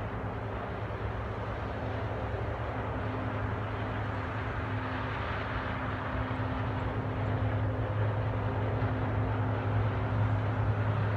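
John Deere combine harvester working through standing corn: a loud, steady engine drone with a deep hum and a dense mechanical rush, growing gradually louder.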